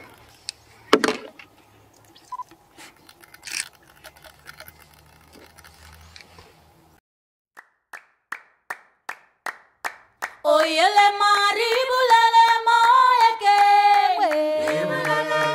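Faint field sound with a few sharp clicks, then a run of short, evenly spaced clicks about three a second, then unaccompanied group singing in harmony from about ten seconds in, which becomes the loudest sound.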